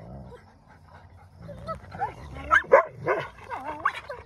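Wolfdog pups squabbling over a possession. A low rumbling growl comes first, then a run of whining yelps and yips that bend up and down in pitch and are loudest about halfway through.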